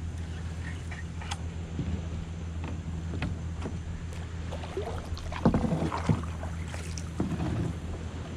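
Kayak paddle strokes: the blade dips and splashes in the water, with drips and small knocks against the hull. They are loudest about five and a half seconds in and again about seven seconds in, over a steady low hum.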